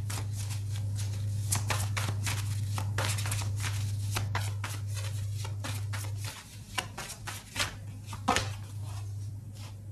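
Tarot cards being shuffled and handled: rapid clicking, riffling card sounds that thin out to scattered taps about six seconds in. A low steady hum lies underneath and stops at the same point.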